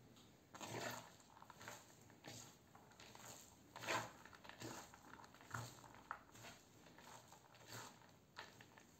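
Shredded cabbage and carrot being tossed together by gloved hands in a bowl: faint, irregular rustling swishes, roughly one every second, the loudest about four seconds in.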